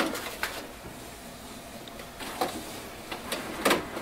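Canon MAXIFY MB2020 inkjet printer running its first-setup maintenance cycle while it cleans the printhead: a steady low mechanical whir, with three short clicks, the loudest near the end.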